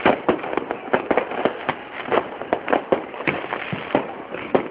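Many fireworks going off at once: a dense, irregular run of sharp bangs and cracks, several a second, over a continuous din.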